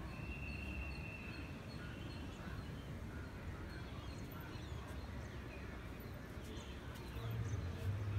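Quiet outdoor ambience with faint chirps and a low rumble. A high, steady whistle-like note is held for about a second and a half near the start.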